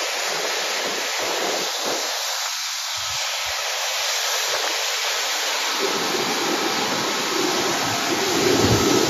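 Jet engines of a Tianjin Airlines Airbus A330 at taxi power, a steady rushing hiss, growing a little louder with some low rumble near the end.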